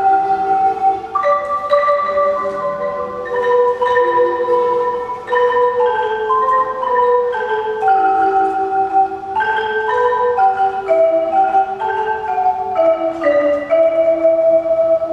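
Marimba ensemble of several wooden marimbas played together: a melody in struck notes over chords, with many notes held long.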